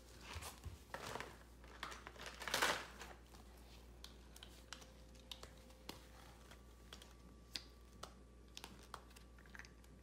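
Rustling and small plastic clicks of a toy doctor kit and toy stethoscope being handled: a few rustling swishes in the first three seconds, the loudest near the three-second mark, then scattered light clicks.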